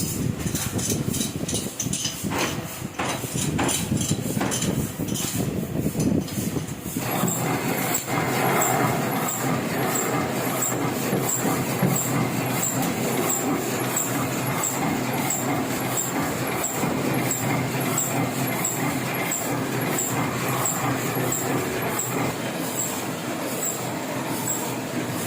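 Heidelberg offset printing press running: irregular knocks for the first seven seconds or so, then a steady mechanical run with a regular clicking a little under twice a second.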